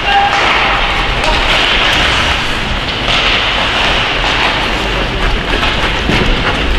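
Steady, noisy din of an ice hockey rink during play, with faint scattered clicks.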